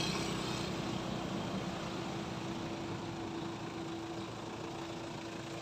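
A steady engine hum, as of a vehicle idling, over a noisy background; it eases off slightly towards the end.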